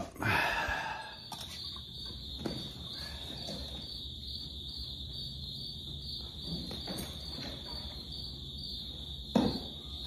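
A cricket trilling steadily at a high pitch, starting about a second in, with a few scattered knocks.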